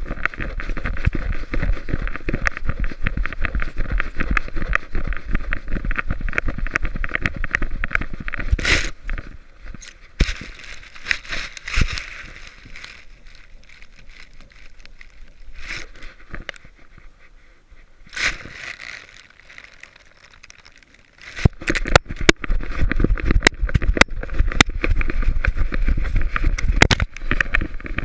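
Close rubbing, scraping and knocking on the housing of an action camera fixed to a ball, as a dog mouths it and it tumbles through grass. For several seconds in the middle the noise drops to scattered clicks, then the loud crackly rubbing comes back.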